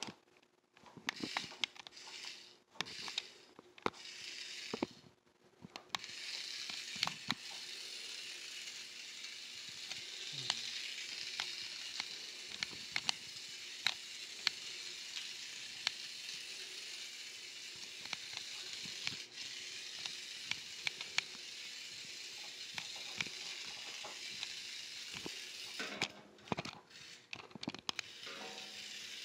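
A steady hiss sets in a few seconds in and drops away near the end. Over it come many scattered light clicks and taps, from kittens batting a small toy across a concrete floor.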